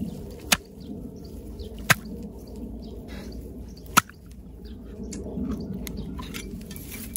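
Knife blade prying open a freshwater pearl mussel, clicking against the shell: three sharp clicks over the first four seconds, with softer scraping between them.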